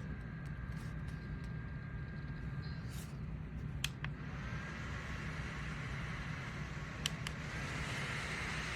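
Bladeless neck fan running with a steady whir and a faint whine, with two sharp clicks, one about four seconds in and one about seven seconds in.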